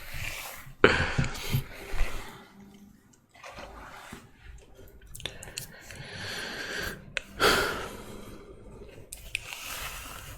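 Close-miked breathing and mouth sounds: irregular breathy puffs and swishes with a few soft clicks.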